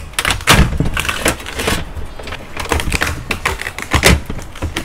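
Hard, knobbly shell of a steamed slipper lobster cracking and crackling as hands pry it apart: a run of irregular sharp clicks and crunches, loudest about half a second in and again near the end.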